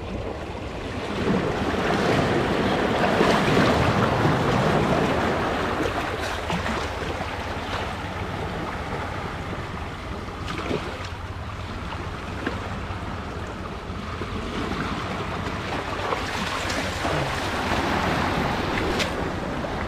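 Seawater washing and splashing among shore rocks while a cast net is hauled out of a rock pool, swelling louder for a few seconds near the start, with a few light knocks later on.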